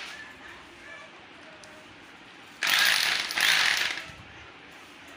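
Electric drill motor run in two short bursts, about 2.7 and 3.4 s in, each lasting just over half a second.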